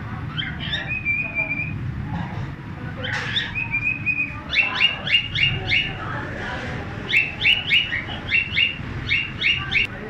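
Cockatiel whistling and chirping: a short held whistle about a second in and another near four seconds, then three quick runs of sharp, repeated chirps, several a second. A low street rumble runs underneath.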